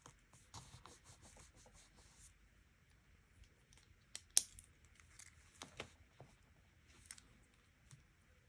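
Quiet handling of paper and stationery on a desk: soft rustling and light scraping, with a sharp tap about four seconds in and a few lighter taps after.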